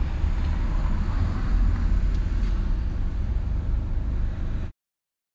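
Steady low rumbling background noise with no clear rhythm or tone, cutting off abruptly near the end.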